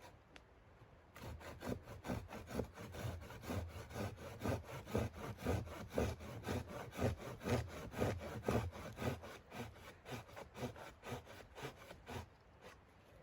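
Hand saw cutting through wood in steady back-and-forth strokes, about two a second, which stop about twelve seconds in.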